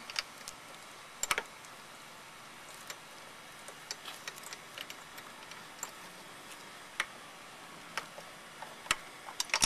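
Sparse, irregular metal clicks and ticks of hand tools as a bit driver fitted with a socket adapter is turned to tighten a carburetor mounting nut on a lawnmower engine. The clicks come in a small cluster about a second in, then singly and a few at a time.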